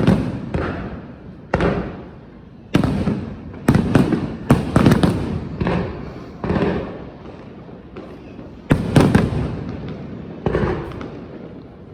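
Fireworks display: aerial shells bursting in a string of sharp bangs, roughly one every second or two, each dying away slowly.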